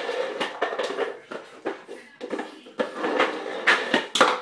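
Red plastic cereal bowl scraping and clattering across a hard kitchen floor as a boxer puppy shoves it with her paws, with many irregular sharp knocks; it stops near the end.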